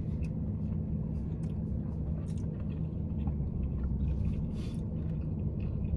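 Faint chewing and small mouth clicks of someone eating pizza, over a steady low hum inside a parked car's cabin.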